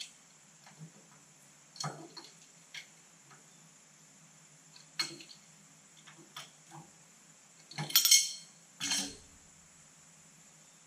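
Scattered light metallic clinks of a wrench and steel parts against a hydraulic lift cylinder as its end nut is worked off, with two louder clanks near the end.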